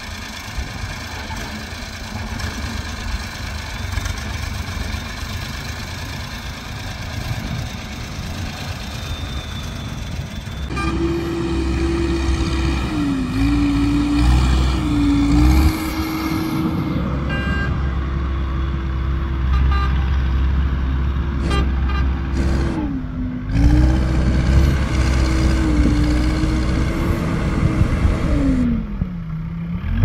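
Diesel engine noise. At first a tractor's engine runs, then about a third of the way in an Escorts backhoe loader's engine takes over with a steady, fairly high note over a deep rumble. That note sags and recovers several times, most deeply near the end.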